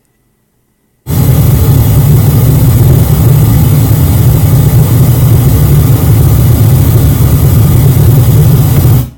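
Pink noise played loud through a Sony MHC-EC99i stereo and its subwoofer: a steady, even hiss, strongest in the bass. It starts about a second in and cuts off suddenly near the end.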